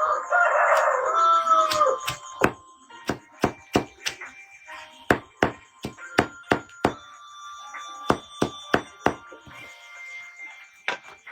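A rooster crows once at the start. It is followed by a run of sharp chopping knocks, a blade striking wood two to three times a second in quick clusters, which stop a couple of seconds before the end.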